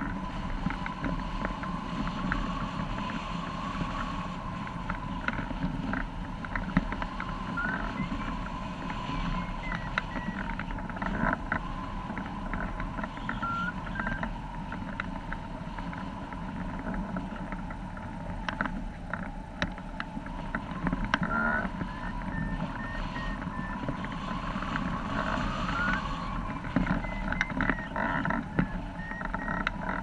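Steady rush of air over a hang glider in strong, gusty flight, with frequent short knocks and flutter from the sail and frame.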